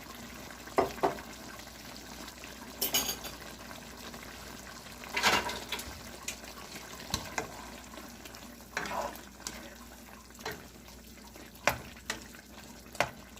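Beef sizzling in a pan of its own juices while a cooking utensil stirs it, with a steady low sizzle under about eight scattered clinks and knocks against the pan and a longer rustle about five seconds in as bell pepper strips go in.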